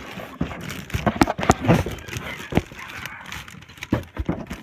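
Packaging being handled and unwrapped: rustling plastic and cardboard with many sharp, irregular knocks and clicks.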